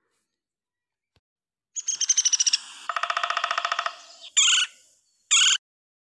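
Woodpecker calling: a fast, rapid series of sharp notes starting about two seconds in, then two short separate calls near the end.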